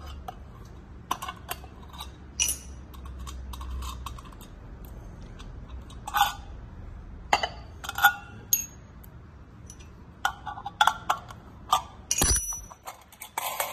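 Cut-glass lamp shade and small metal fittings clinking and clicking as they are handled and unscrewed: irregular sharp clinks, a few ringing briefly, and a dull knock near the end as a part is set down.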